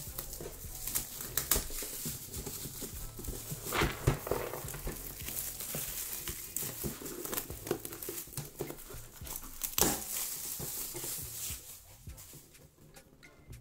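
Plastic shrink wrap being peeled and torn off a cardboard game box, crinkling steadily with a few sharp louder crackles; it dies down near the end.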